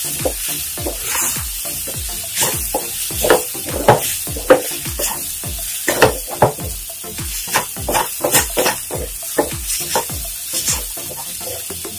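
Spatula stirring and scraping a dry stir-fry of cabbage, cowpeas and grated coconut in a nonstick pan, with irregular scrapes and knocks over a light, steady sizzle.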